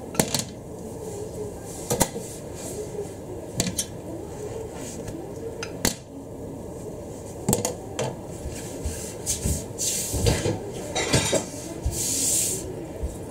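Plastic slotted turner and ceramic-coated frying pan clinking and knocking as an omelette is worked in the pan. There are single sharp clicks every second or two, and a quicker cluster of knocks near the end.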